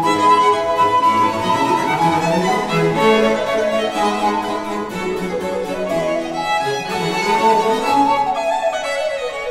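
Baroque chamber ensemble playing a recorder concerto: alto recorder with violins, cello, bassoon, lute and harpsichord continuo. A falling run comes near the end.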